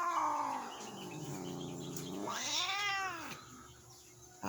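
Tortoiseshell cat yowling: a drawn-out call rising and falling in pitch, a low moan, then a second rising-and-falling yowl about two and a half seconds in. It is the sound of a grumpy, annoyed cat on the verge of scratching.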